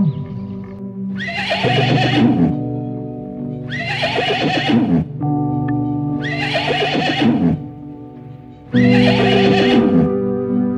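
A horse whinnying four times in the same way, about every two and a half seconds, over background music with steady sustained chords.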